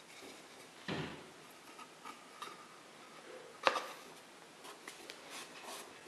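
Scattered light knocks and scrapes of a wooden disc and PVC pipe being handled and set down on a plastic bucket lid. There is a soft thud about a second in, and the sharpest knock comes a little past halfway.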